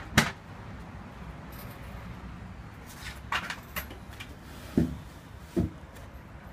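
Knocks and clicks from handling a plastic Dictum Systainer tool case and the wooden tool caddy in it: one sharp, loud knock at the start, a few lighter clicks about three seconds in, and two more knocks near the end.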